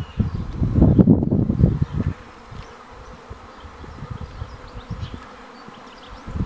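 Swarm of wild honeybees buzzing as a steady hum. Heavy low buffeting on the microphone fills the first two seconds, then eases off.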